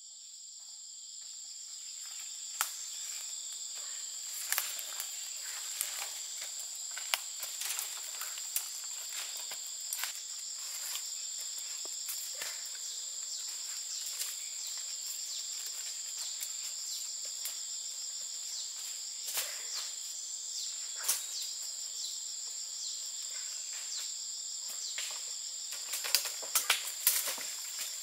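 Insects chirring in a steady, high-pitched drone, with scattered sharp clicks and snaps over it that come more often near the end.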